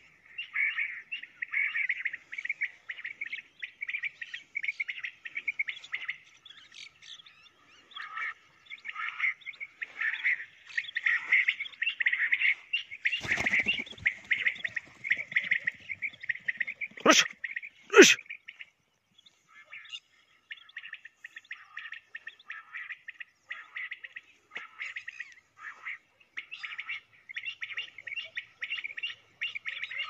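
Birds calling in a rapid, continuous chatter. Just past halfway, a brief rumble is followed by two sharp cracks about a second apart, the loudest sounds, and the calling pauses briefly after them.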